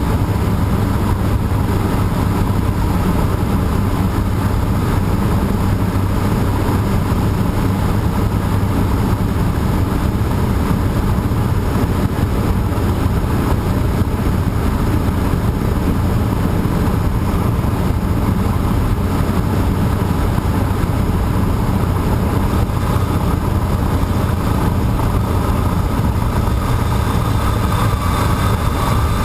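Cessna 150J's four-cylinder Continental O-200 engine and propeller running steadily at a constant pitch.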